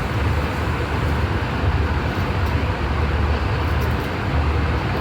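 Steady airliner cabin noise inside an Airbus A320 in flight: a constant low rumble of the engines and rushing airflow.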